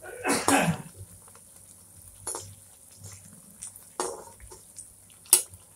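A perforated steel spatula scrapes and taps against a kadai while bread rounds deep-fry in oil, with a faint sizzle of the oil. There is a scrape in the first second and a few sharp clinks after it, the loudest near the end.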